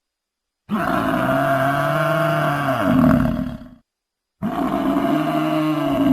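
Buffalo bellowing: two long, low calls of about three seconds each, with a short silence between them.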